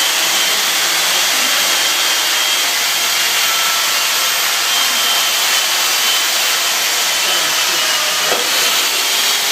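Chainsaw cutting into a block of ice: a loud, steady hissing motor noise that runs without a break.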